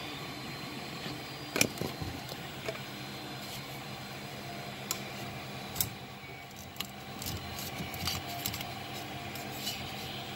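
Scattered clicks, taps and handling noises as a flexible TPU print is worked loose and peeled off a 3D printer's build plate by hand, with a sharp knock about one and a half seconds in. A steady low hum runs underneath.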